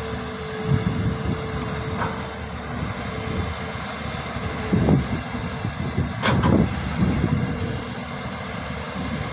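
Hydraulic excavator's diesel engine running with a steady low rumble and a steady whine that drops out about halfway through. A few short, sharp sounds come about two-thirds of the way in.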